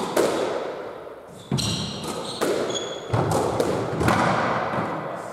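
Squash ball being struck by rackets and hitting the court walls during a rally: a series of sharp smacks roughly a second apart, each ringing on in the court's echo, with a brief squeak of a shoe on the wooden floor in the middle.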